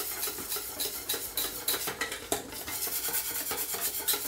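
Wire whisk beating a wet grated-potato pancake mixture in a stainless steel bowl, its wires clinking and scraping against the metal sides in quick, repeated strokes.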